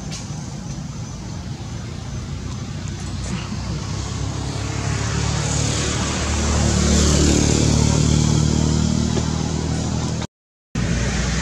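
A motor vehicle's engine running nearby, growing louder and shifting in pitch midway as it passes, with the sound cutting out completely for about half a second near the end.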